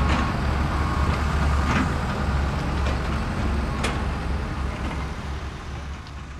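Heavy diesel site machinery running with a steady low rumble and a few sharp metallic clanks, fading out near the end.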